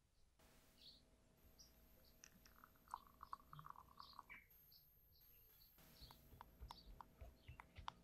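Faint trickle of a pale liquid poured in a thin stream into a glass measuring cup, then a run of light clicks and taps as a spatula scrapes green colourant from a small cup against the glass.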